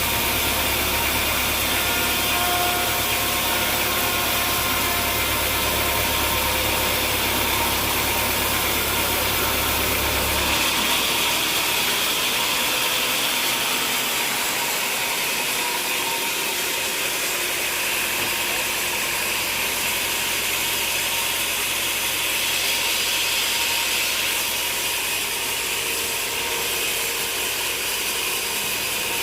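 Sawmill machinery running steadily with an engine hum; the deep low part of the hum drops away about ten seconds in while the rest of the noise carries on.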